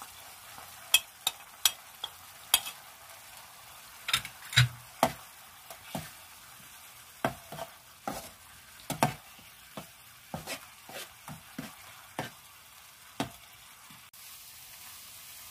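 Tomato, onion and spice paste sizzling in a non-stick frying pan as a metal spoon stirs it, with irregular sharp clicks and scrapes of the spoon against the pan. The clicks thin out near the end, leaving only the sizzle.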